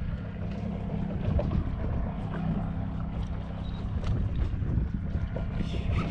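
A boat's motor running steadily at low speed, a constant low hum, with wind rushing on the microphone.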